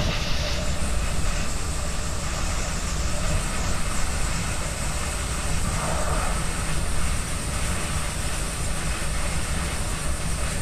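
Long Island Rail Road commuter train running along the Main Line, heard from on board: a steady rumble and rush of wheels on rail that barely changes in level.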